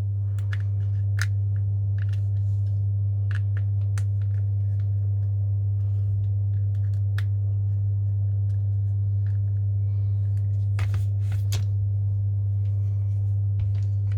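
Light metallic clicks and taps from a 2 mm Allen key working small screws out of an AAP-01 airsoft pistol and from the parts being handled, with two louder clicks about three-quarters of the way through. A steady low hum runs underneath and is the loudest sound.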